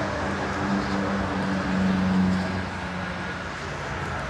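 A vehicle engine running with a steady low hum over outdoor background noise. It grows louder about two seconds in, then eases off a little.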